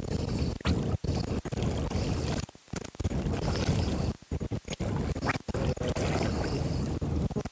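Wind buffeting the microphone: a steady, dense noise that drops out briefly several times.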